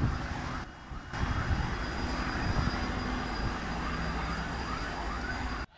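Steady outdoor noise: a low engine-like drone under a hiss, with faint repeated rising tones in the middle.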